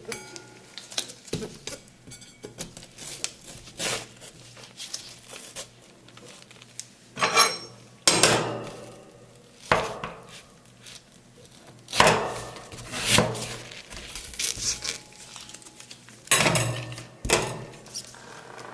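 Metal spatulas chopping and scraping watermelon on the steel cold plate of a rolled ice cream pan: irregular sharp clacks and scrapes, some much louder than others.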